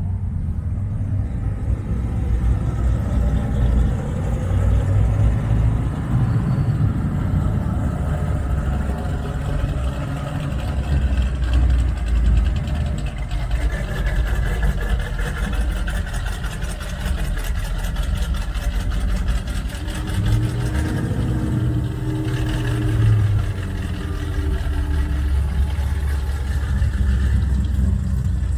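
Engines of classic American cars and pickups running as they drive slowly past one after another, a steady low engine sound with one car's note standing out for a few seconds about two-thirds of the way through.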